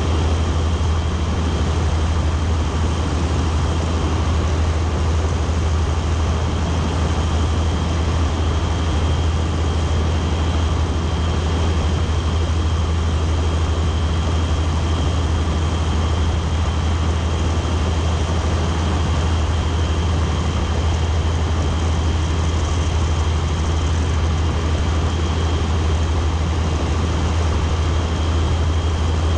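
Microlight trike in cruise flight: its engine and pusher propeller running steadily, a loud low drone with a faint high whine, mixed with air rushing past the open seat.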